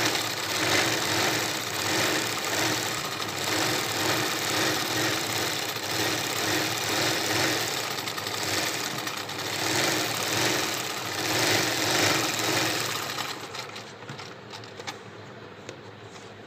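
Electric sewing machine running at speed for machine embroidery, the fabric moved around in a hoop under the needle; the running swells and eases every second or two. About thirteen seconds in it slows and stops, leaving a few light clicks.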